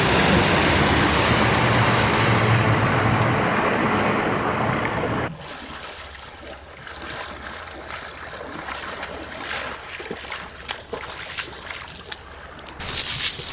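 Rushing wind and water noise, typical of a boat under way, for about five seconds. It cuts abruptly to a quieter background of soft water sound with scattered light clicks and splashes.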